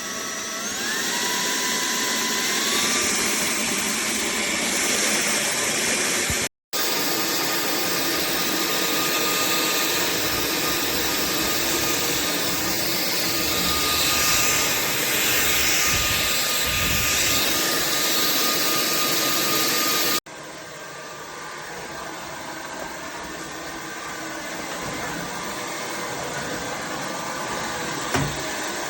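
AlloyMove cordless stick vacuum running with a steady rushing whine. Its pitch steps up over the first few seconds as the motor speeds up. The sound cuts out for an instant about a third of the way in, and drops abruptly to a quieter rush about two-thirds through.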